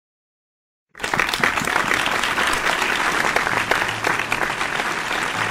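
Total silence for about a second, then a crowd applauding, cutting in suddenly and carrying on steadily.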